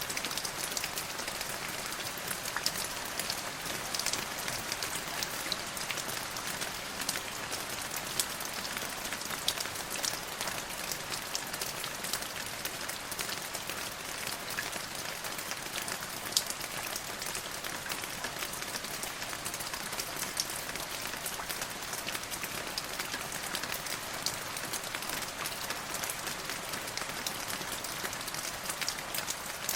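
Steady rain falling on a hard surface, an even hiss with many sharp individual drop ticks scattered through it.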